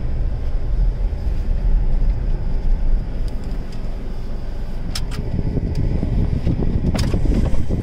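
Car running slowly on a dirt road, heard from inside the cabin as a steady low rumble of engine and tyres. A few sharp clicks and knocks come in the second half.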